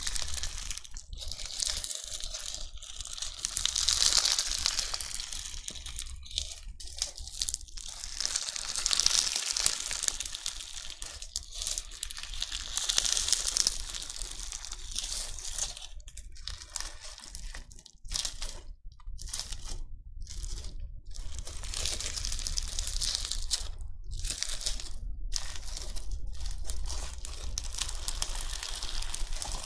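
Crunchy bingsu slime being worked, its beads crackling and crunching in waves that swell and fade every few seconds, with a few brief pauses.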